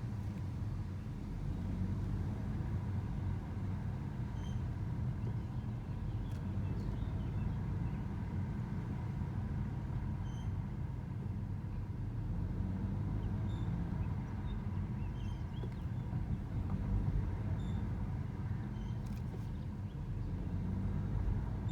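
Car driving slowly in second gear at about 22 km/h with a steady low running rumble. A faint, steady high squeak runs through it: the squeak that appears at this speed.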